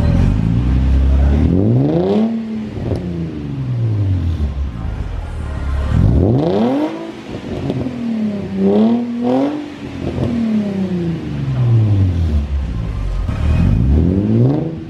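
Nissan 350Z's V6 through a freshly fitted Invidia Gemini cat-back exhaust, revved up and let fall back to idle three times, once holding the revs unsteadily at the top. The exhaust tone is deep with a rasp as the revs climb.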